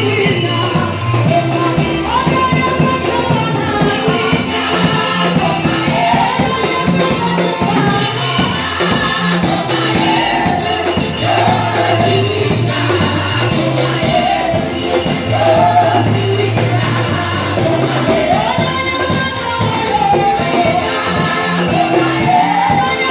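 Gospel music: a choir singing with instrumental accompaniment over a repeating bass line.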